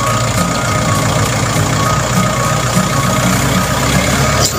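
Tractor's diesel engine running steadily.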